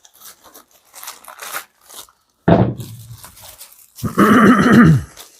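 Light rustling of packaging, then a dog barks once about two and a half seconds in and gives a longer, wavering vocal call lasting about a second near the end.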